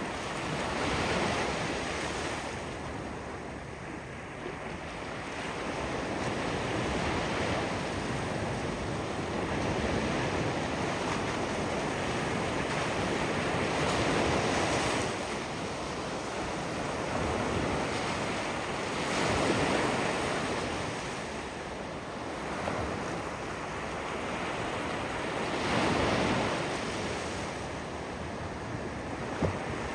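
Ocean waves breaking and washing on the shore in a steady hiss of surf, swelling with each wave every few seconds. There is some wind noise on the microphone.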